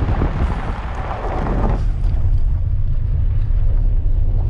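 Vehicle driving on a rough dirt road: a steady low rumble with wind buffeting the microphone. A louder rushing noise drops away about two seconds in, leaving the low rumble.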